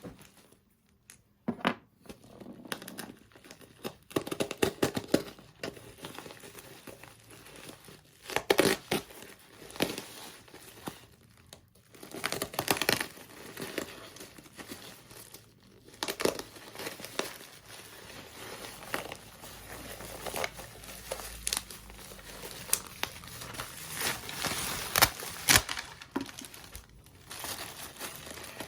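Plastic packaging being crinkled and torn open by hand, with irregular sharp clicks and knocks as the parts are handled.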